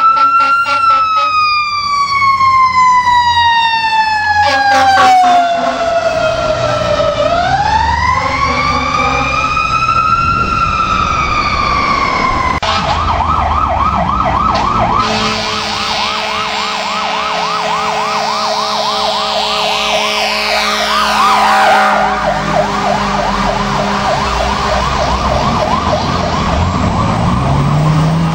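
Fire apparatus sirens: a mechanical siren winding down, winding back up and falling again, broken by short horn blasts, then an electronic siren on a fast yelp with a held horn tone underneath.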